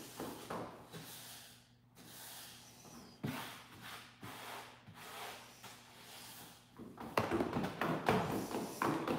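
Small clicks, knocks and scrapes of plastic sand toys being handled at a tabletop sensory bin, scattered at first and turning into a busier clatter about seven seconds in.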